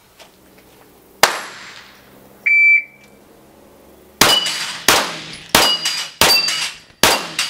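A sharp click, then a shot timer's start beep about two and a half seconds in. About a second and a half later a pistol fires five quick shots, roughly two-thirds of a second apart, several of them followed by the ring of a steel plate being hit.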